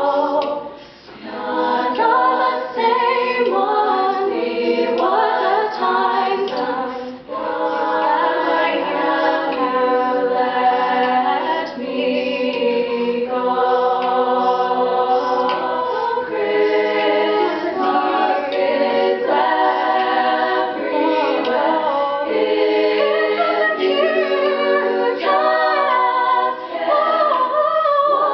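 All-female a cappella group singing: one woman's solo voice on a microphone over the group's sustained backing chords, with brief breaks about a second and seven seconds in.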